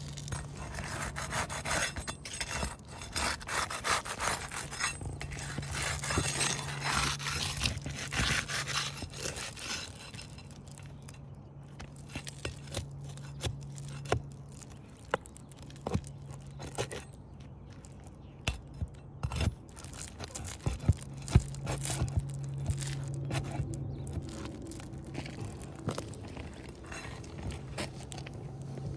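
Pry bar scraping and prying under 3-tab asphalt shingles to lift a row. Rough gritty scraping runs for the first several seconds, then turns to scattered sharp clicks and knocks of the metal bar against the shingles.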